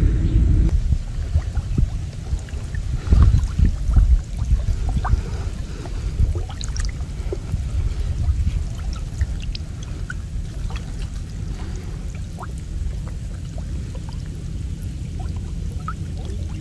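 Muddy creek water sloshing and trickling around a man wading chest-deep as he works a gill net by hand, with small splashes and drips throughout. It is loudest around three to four seconds in.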